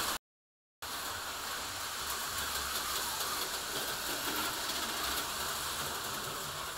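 HO-scale model freight train running around the layout: a steady hum and rumble from its small electric motor and metal wheels on the rails. The sound drops out completely for about half a second shortly after the start.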